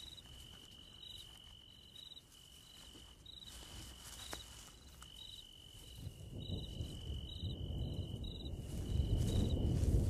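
Night insects, crickets by their sound, calling: a steady high trill with short breaks, and short chirps repeating under a second apart. A low rumble swells in over the last few seconds.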